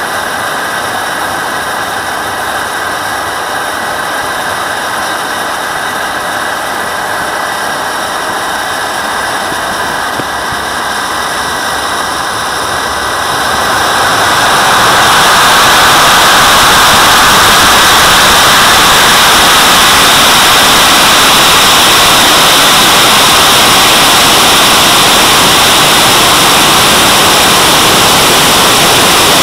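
JetCat model jet turbine heard from a camera mounted on the plane: a steady whine at low power, then spooling up about 13 seconds in to a loud, even full-power roar for the takeoff and climb.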